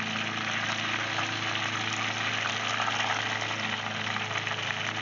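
Breaded perch pieces deep-frying in hot oil in a cast-iron pot: a steady, dense crackling sizzle of bubbling oil. A steady low hum runs underneath.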